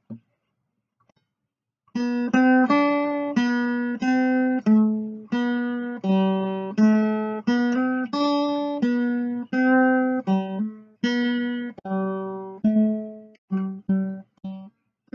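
Background music: a picked acoustic guitar melody of single notes, one or two a second, each ringing and fading, starting about two seconds in after a short silence.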